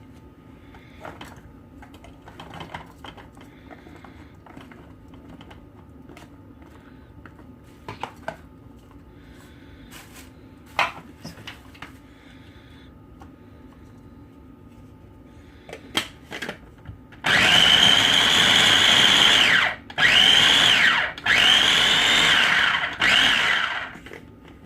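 Electric food chopper pulsed in four short bursts of a loud, high motor whine, chopping onion pieces coarsely. Before it starts, a few light clicks and knocks as the pieces are loaded.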